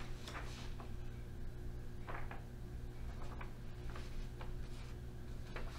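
Quiet room with a steady low hum and a handful of faint, scattered light ticks and rustles, like small handling noises at a table.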